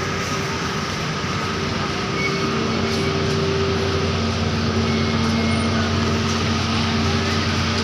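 A vehicle engine idling: a steady low hum with level tones, and another tone joining about two seconds in.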